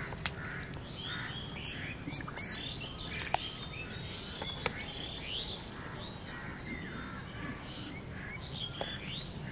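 Small birds chirping in many quick, overlapping calls over a steady low outdoor noise, with two sharp clicks, the first a little over three seconds in and the second about a second and a half later.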